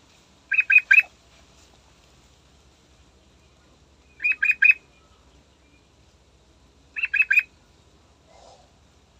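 Yellow-vented bulbul calling: three short phrases of three quick, bright notes each, a few seconds apart.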